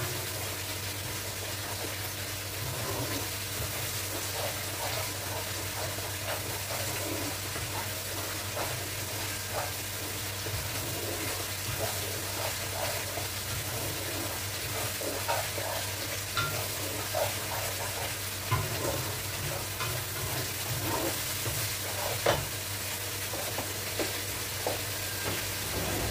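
Chicken curry sizzling in a steel wok on a gas burner while a wooden spatula stirs it, with soft scrapes and knocks against the pan over a steady hiss and a low hum. One sharper knock comes near the end.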